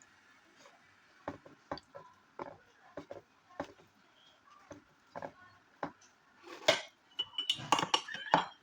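Eating sounds at a meal: scattered soft taps and mouth sounds, then, from about six and a half seconds in, a run of louder clinks of a utensil against dishes with brief ringing.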